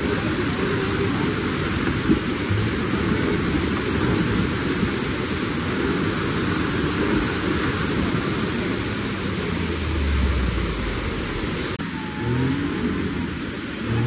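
A stuck car's engine revving as the car is pushed from behind to free it, under a loud steady rushing noise.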